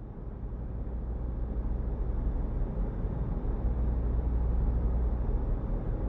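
Low, steady machine hum and rumble, fading in gradually and growing louder: a laboratory ambience background.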